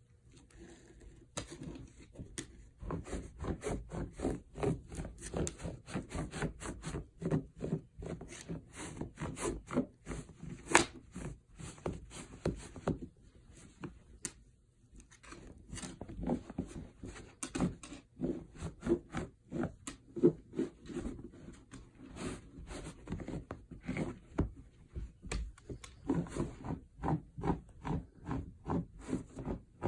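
A Welsh Corgi's front paws scratching and digging at a small carpet mat in quick, rhythmic strokes, about three or four a second, with a short pause about halfway through: the dog is scratching its bed into shape before lying down.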